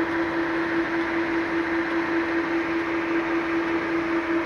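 Lansing G-20 engine lathe running at its higher speed setting: a steady gear whine held at one pitch over an even mechanical whirr.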